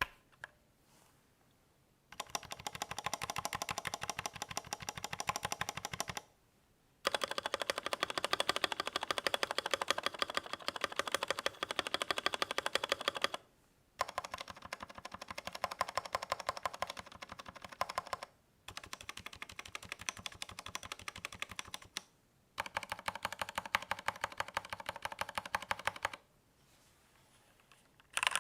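Redragon DEVARAJAS K556 mechanical keyboard being typed on fast, its keys clacking in five runs of rapid keystrokes separated by brief pauses.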